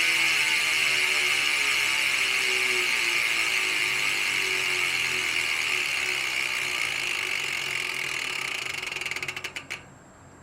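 Mountain-bike rear hub freewheeling: the ratchet clicks so fast they run into a loud buzz as the wheel coasts. The buzz slowly drops in pitch, breaks into separate clicks and stops near the end as the wheel comes to rest.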